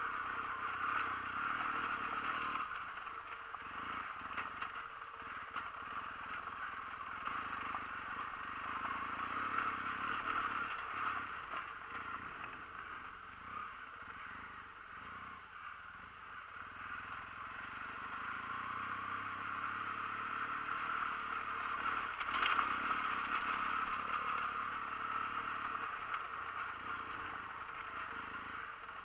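Motorcycle engine running as the bike climbs a loose, rocky gravel track, with tyres on the stones; the sound swells and eases, with one sharper knock about three-quarters of the way through.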